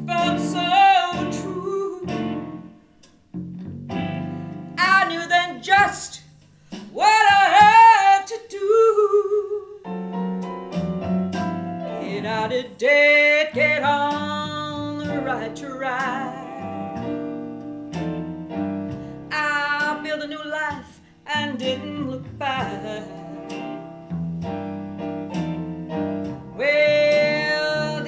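A woman singing a song solo over an instrumental backing, with long held and bending sung notes and a brief pause about three seconds in.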